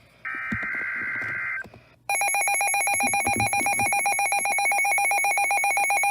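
A NOAA Weather Radio SAME data burst, a harsh digital screech lasting about a second and a half. Then, from about two seconds in, a weather radio receiver's alert alarm: a loud, rapid electronic trilling beep, steady in pitch. The data burst and alarm signal that a new warning is being received.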